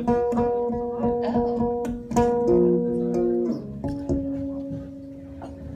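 Amplified guitar being played: picked notes that ring on and change pitch a few times, growing quieter over the last couple of seconds.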